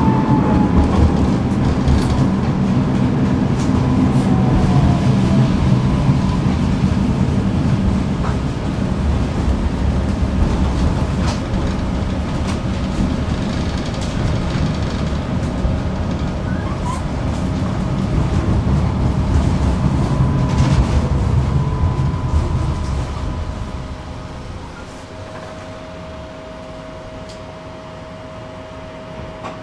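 Tram running on its rails: a steady low rumble and rattle of wheels and running gear, with a falling whine near the start. About 23 seconds in the running noise dies down, and a steady hum is left as the tram slows.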